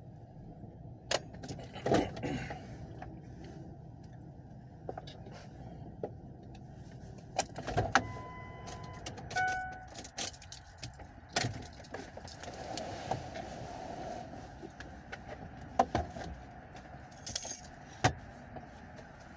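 Keys jangling with scattered clicks and knocks as someone moves about in a parked car and climbs out. A car's electronic warning chime sounds twice, briefly, about eight seconds in.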